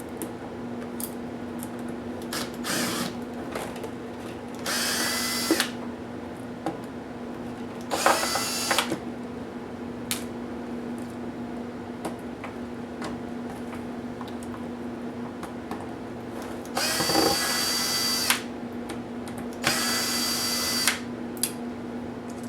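Small electric screwdriver running in four short bursts of about a second each, each spinning up with a rising whine as it drives laptop screws, with small clicks of parts being handled in between.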